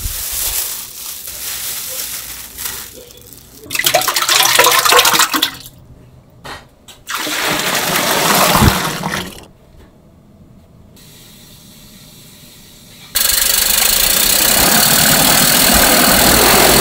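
Cooking noise from making green onion pancakes, in a string of short edited cuts of hissing, splashing noise that start and stop abruptly. A loud steady rushing noise fills the last few seconds.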